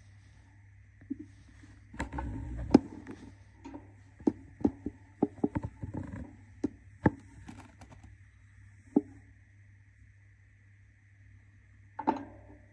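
A budgie scratching and shuffling about, with a rustle of bedding and a string of sharp taps and clicks, busiest about two to seven seconds in, over a steady electrical hum.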